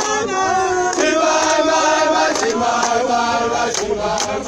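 Crowd of rugby supporters singing a chant together, mostly men's voices, holding long notes.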